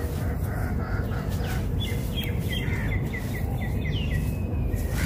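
Dry sand-cement and dirt crumbles being poured and pressed by hand, giving a soft gritty crumbling over a steady low rumble. In the middle a bird chirps a quick run of about ten short notes, roughly five a second, for about two seconds.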